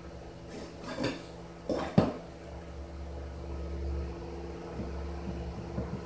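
A plastic wood-glue bottle and wooden boat parts being handled: a few light knocks and clacks, the sharpest about two seconds in, followed by a steady low rumble.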